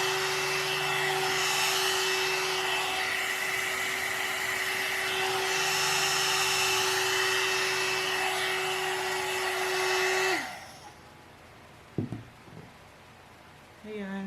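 One-step hot air brush (hair dryer and styler) running with a steady motor hum and rush of air, then switched off about ten seconds in, its hum dropping as the motor spins down. A single knock follows a little later.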